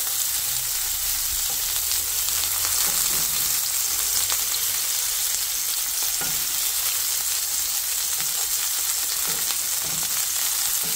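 Thin-sliced pork belly rolls sizzling steadily in a frying pan, browning in their rendered fat and a little sesame oil, with occasional small clicks and pops.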